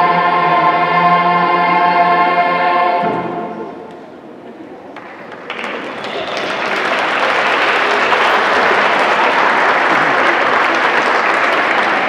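Youth choir with cello holds a last chord that stops about three seconds in and dies away in the hall's reverberation. About five seconds in, audience applause starts and carries on, loud and steady.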